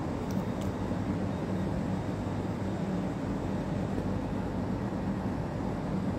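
Steady rushing background noise with a low hum, unchanging throughout, with a few faint clicks about half a second in.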